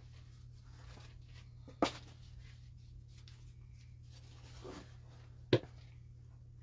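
Handling of a cricket bat and its sleeve: faint rustling with two sharp knocks a few seconds apart, over a low steady hum.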